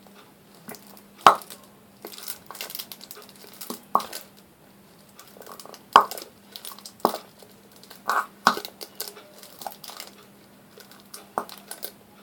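Irregular plastic crinkling and sharp clicks from a plastic glue bottle being squeezed and handled.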